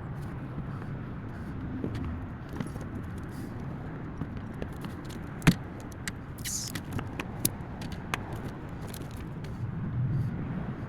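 Small parts being handled and fitted back together by hand: scattered clicks and light clinks, with one sharp click about five and a half seconds in, over a steady low rumble.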